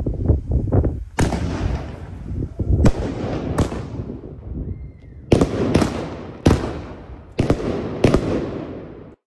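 Fireworks exploding: crackling in the first second, then a series of about eight loud bangs, each trailing off in a long echo. The sound cuts off abruptly near the end.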